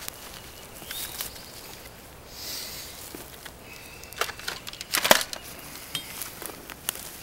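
Rustling and crunching of footsteps on dry pine needles and leaf litter as a person gets up and moves about, with a cluster of sharp clicks and knocks from handling an airsoft rifle; the loudest knock comes about five seconds in.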